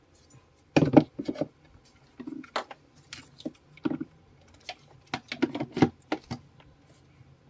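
Small hard parts and repair tools being handled: about a dozen irregular clicks and light knocks, the loudest near the start and a quick cluster in the second half.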